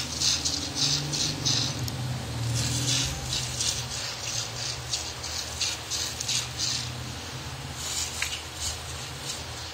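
Goat being milked by hand: streams of milk squirting into a bowl in quick hissing squirts, about three or four a second, in runs with short pauses.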